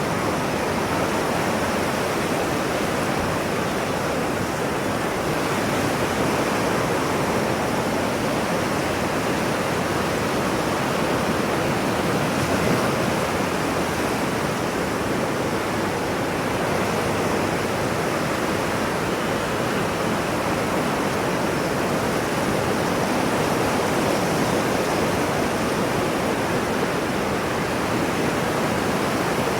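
Ocean surf as a continuous, even rush of noise, with no separate wave breaks standing out.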